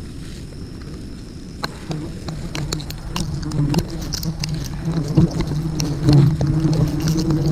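A swarm of wild bees buzzing as a steady low drone that grows louder from about two seconds in, with scattered clicks and crackles over it.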